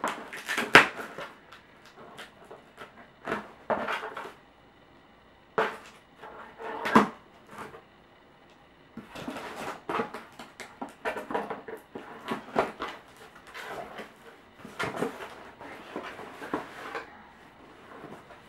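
Cardboard shipping box being slit open along its taped seam, with a few sharp scrapes and knocks, then its flaps pulled back and the contents handled, giving a long stretch of cardboard and packing rustling. Near the end a shoebox is lifted out.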